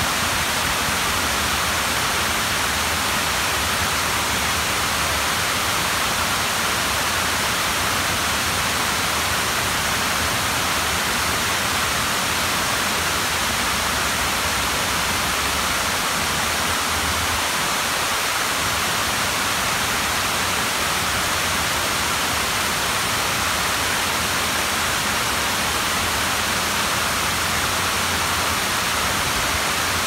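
Waterfall: the steady rush of falling water, an even hiss that does not change.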